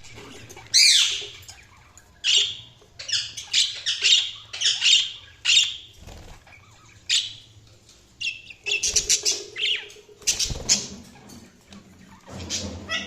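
Budgies (budgerigars) chirping and giving short harsh squawks in quick clusters, with brief pauses between them, and a soft thud or flutter now and then.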